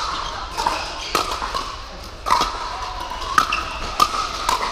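Pickleball paddles striking a hard plastic ball: about half a dozen sharp, hollow pops at uneven spacing, each with a short ringing echo in a large hall. Near the end the hits come about every half second, as in quick volleys at the net.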